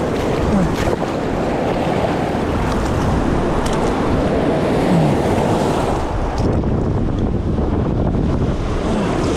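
Sea surf washing against the shore in a steady rush, mixed with wind buffeting the microphone.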